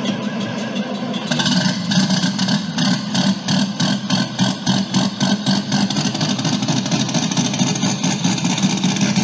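An engine running steadily. From about a second and a half in, a fast, even pulsing rises over it, several beats a second, and fades again in the second half.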